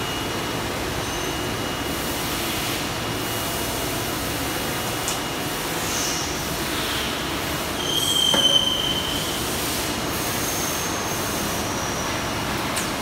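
Factory machinery noise: a steady hiss and rumble with high-pitched squeals and whistles coming and going, the loudest about eight seconds in.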